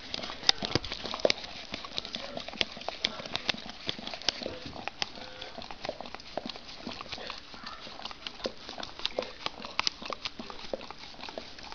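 Two dogs licking a small plastic dessert pot held in a hand: many quick, irregular clicks and taps of tongues and noses against the plastic.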